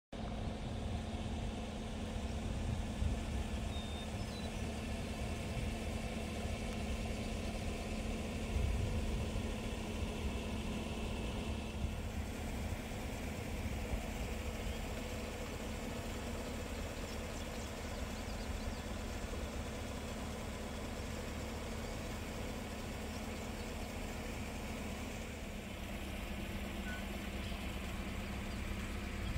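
A vehicle engine idling with a steady hum, over an uneven low rumble.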